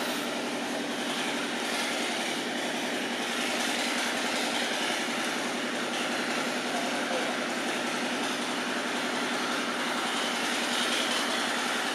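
Steady outdoor background noise: an even rushing hiss with a faint low hum underneath, unbroken and unchanging in level.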